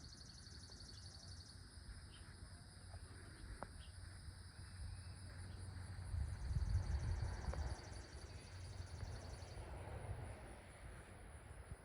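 Insects trilling outdoors in a steady, high, finely pulsing drone, one band dropping out near the end. A low rumble swells in the middle.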